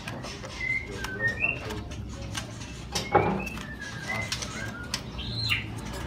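Caged songbirds calling in short whistled chirps, one after another, with sharp clicks and wing flutters from birds moving in their wire cages. Near the end one longer call rises and then drops in pitch.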